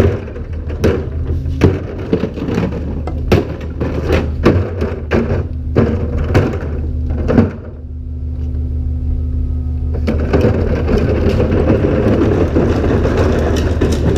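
Collection truck's diesel engine idling with a steady hum while an emptied plastic wheelie cart knocks and rattles as it comes down off the cart tipper and is wheeled away over asphalt. About ten seconds in, a loud, dense churning noise builds and holds over the engine.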